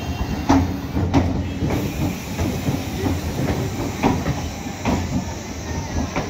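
MEMU electric multiple unit departing, its coaches rolling past with a steady rumble and the wheels clacking over rail joints every second or so.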